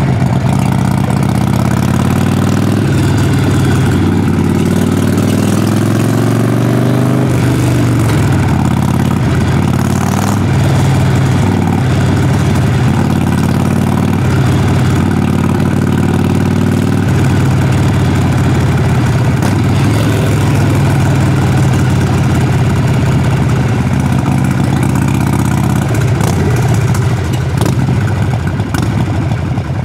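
Harley-Davidson Sportster Forty-Eight's air-cooled V-twin running under way through its exhaust, the pitch rising with the throttle in the first seconds, dropping about seven seconds in as it shifts, and changing again about halfway through.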